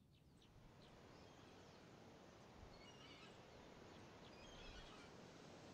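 Faint outdoor country ambience fading in: a low steady rumble with scattered short bird chirps.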